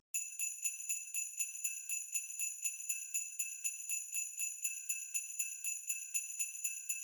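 Sleigh bells shaken in a steady rhythm, about four shakes a second, giving a bright continuous jingle.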